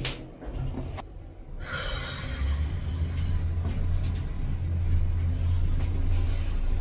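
Passenger lift (elevator) starting off and travelling: a clunk at the start, then from about two seconds in a steady low hum as the car moves.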